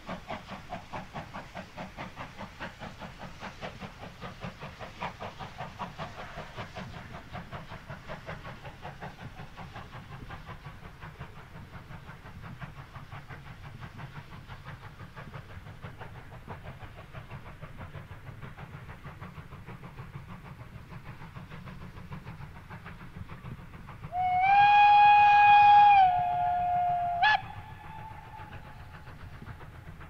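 Steam locomotive hauling a train away: fast rhythmic exhaust beats fade into a steady rumble. About 24 seconds in it sounds its steam whistle once, a loud steady tone of about three seconds that drops slightly in pitch and loudness before cutting off sharply.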